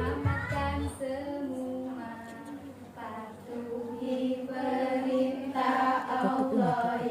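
A group of children singing together, holding long notes. A backing track with a steady low beat plays under them for about the first second, then drops out.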